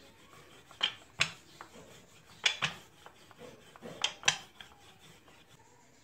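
Wooden rolling pin rolling out a stack of flour-dusted dough sheets on a counter: soft rubbing, broken by three pairs of sharp knocks about a second and a half apart.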